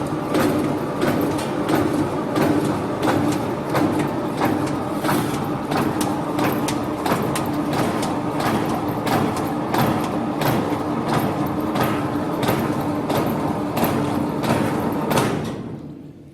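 Fresh-meat long-slice cutting machine running: a steady motor hum with a sharp regular knock about twice a second from the cutting stroke. It shuts off and runs down near the end.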